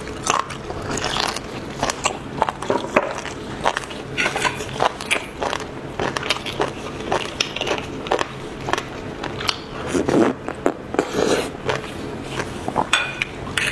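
Close-miked eating of braised beef bone marrow: wet chewing with many small irregular mouth clicks and smacks, growing denser and louder around ten seconds in.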